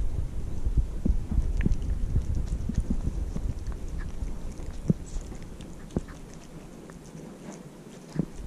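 Orange-and-white kitten eating soft cat food right at the microphone: wet chewing and smacking in quick, irregular clicks. They come thick at first, then fewer and quieter in the second half.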